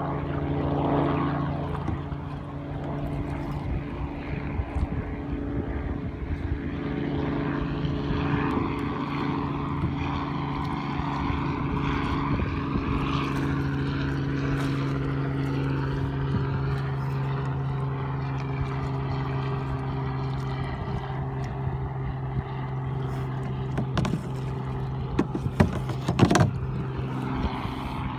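Small propeller airplane's engine droning steadily overhead, with a couple of sharp knocks near the end.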